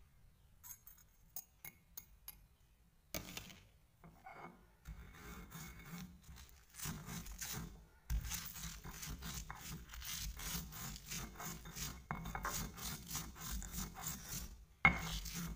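Bird's-eye chilies and coarse salt being crushed and ground by hand against a hard grinding surface, making sambal: a rapid run of rasping, scraping strokes that starts a few seconds in after a few light ticks and grows stronger partway through, with one sharp knock near the end.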